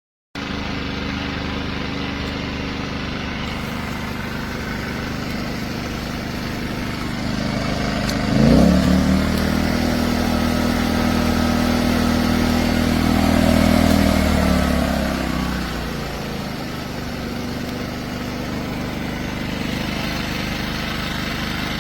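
PowerSmart 4400-watt dual fuel inverter generator's engine running steadily. About eight seconds in it speeds up with a rising pitch, holds the higher speed for several seconds, then settles back down.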